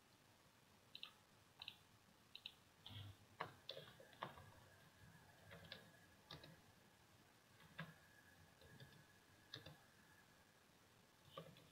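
Faint, irregular clicks of a computer keyboard and mouse as keys are typed, about a dozen in all. A faint steady high tone runs through the middle.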